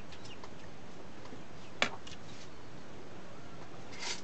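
Small clicks and taps of eating seafood by hand at a table, with one sharp click about two seconds in and a short rustle near the end.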